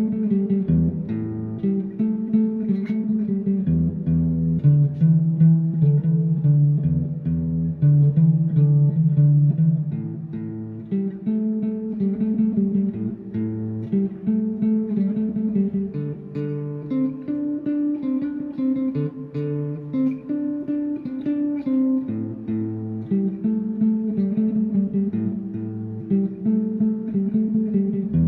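Instrumental music: plucked guitar over a bass line.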